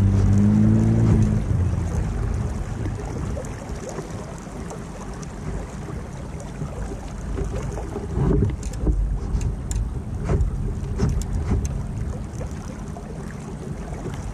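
A boat engine running with a steady hum that fades out within the first two seconds. After that, wind on the microphone and water noise, with a few knocks around the middle.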